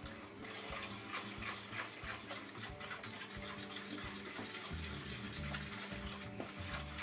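A fork stirring and scraping a soft cream cheese and passion fruit pulp mixture in a plastic bowl, in quick repeated strokes of about three to four a second. Music plays faintly underneath, with a low beat coming in about five seconds in.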